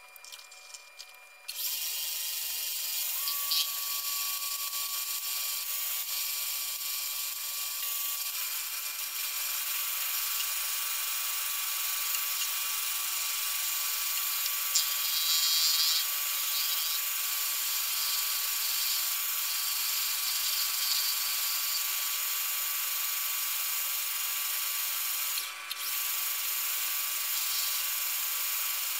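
Metal lathe turning aluminum bar stock with the cutting tool taking a cut: a steady high hiss of the cut over a few steady machine tones, starting about a second and a half in, with a brief dip near the end.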